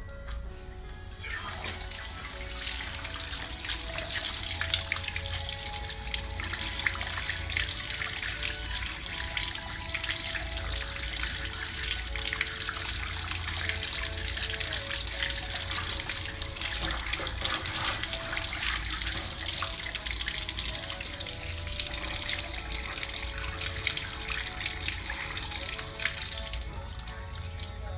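Running water pouring and splashing over hands as a small plucked bird is rinsed. The rush starts about a second in and eases off near the end, with background music underneath.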